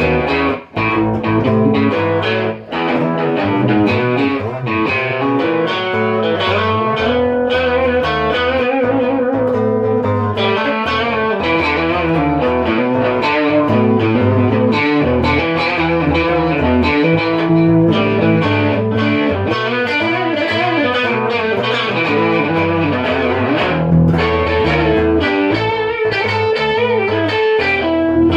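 Rock music led by electric guitar with distortion and effects, over bass and a steady beat.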